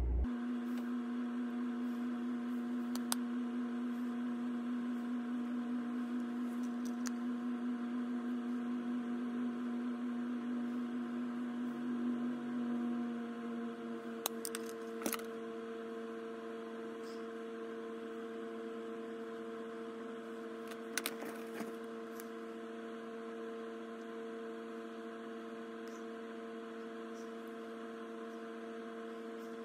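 A steady electrical-sounding hum of several held tones, its strongest tone shifting up about halfway through, with a few faint clicks.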